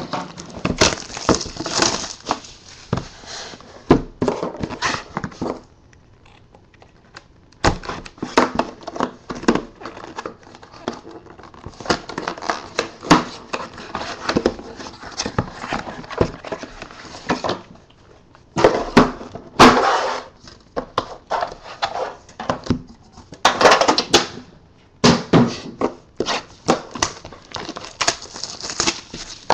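Plastic shrink-wrap crinkling and tearing as a sealed trading-card box is unwrapped and opened, in irregular bursts of rustling with sharp crackles. It pauses for about two seconds twice, once about six seconds in and again just before halfway.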